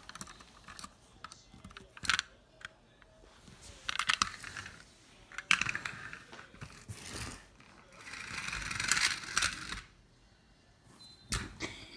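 Irregular sharp clicks and taps mixed with short bursts of rustling, the longest rustle about two-thirds of the way through.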